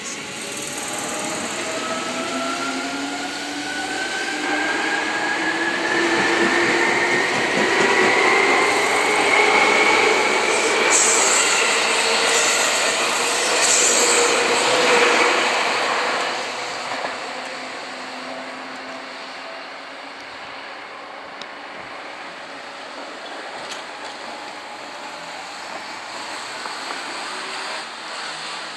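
Seibu 2000-series electric train pulling away from a station: the whine of its motors rises steadily in pitch for about ten seconds as it gathers speed, with the rumble of wheels on the rails as the cars go by. The sound then fades as the train draws away.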